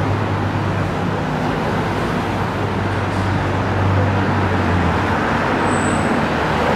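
Steady road traffic noise from passing vehicles, with a low engine hum that fades about five seconds in. A short high squeak sounds about six seconds in.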